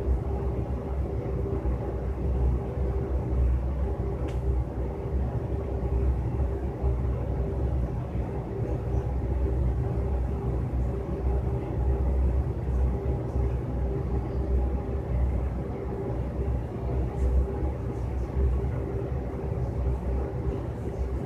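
Steady low rumble with a constant hum underneath: background room noise with no distinct sound from the exercise.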